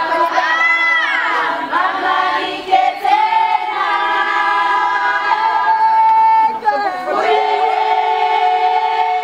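A group of women singing together without instruments, several voices holding long notes at once, with one high voice swooping up and down about a second in: a Zulu wedding song sung by the bridal party.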